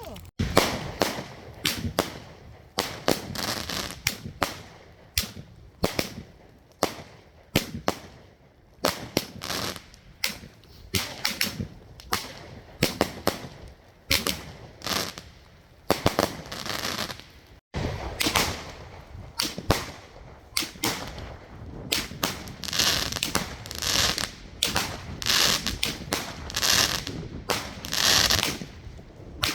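Fireworks going off one after another: a rapid run of sharp bangs and pops, about one or two a second, with crackling between them. The bangs grow denser and louder in the last few seconds.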